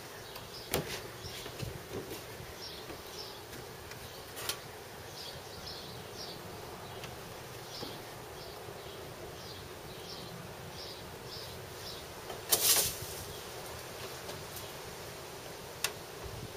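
Steady insect buzzing, with a run of short, high chirps repeating about twice a second and a few light knocks; a short, loud burst of noise about twelve and a half seconds in.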